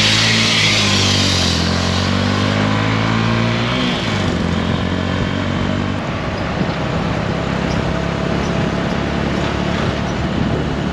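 Honda CB150 motorbike running at cruising speed in traffic, engine hum mixed with wind and road noise at the rider's helmet. The steady engine note changes about four seconds in, and the sound shifts sharply about six seconds in.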